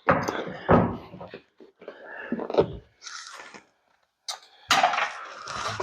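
Sun visor being unscrewed and lifted down from the roof of a 1968 Chevy Impala: irregular knocks, clunks and rustling as the loosened visor and its hardware are handled.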